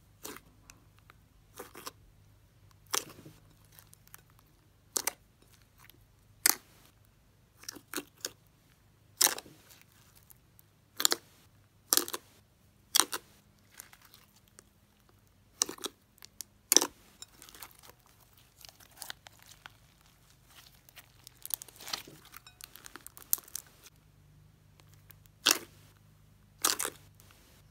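Thick white glue slime being kneaded and pressed by hand in a ceramic bowl, giving short, sharp pops and crackles at irregular intervals, about one every second or two.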